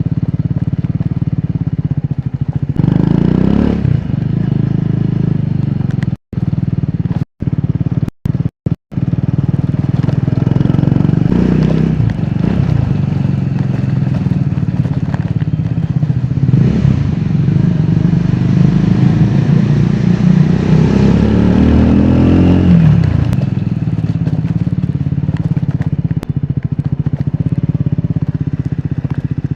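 Triumph Scrambler 400X's single-cylinder engine and exhaust under way, rising in pitch as it is revved up through the gears several times, with the longest pull about three-quarters of the way through. The sound cuts out completely four times in quick succession about a quarter of the way in.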